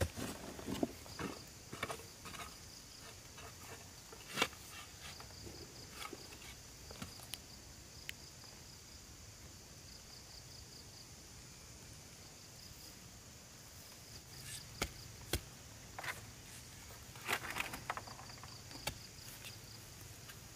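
Insects chirping in a steady, high, pulsing trill, with scattered sharp clicks and snaps, a cluster of them about three-quarters of the way through.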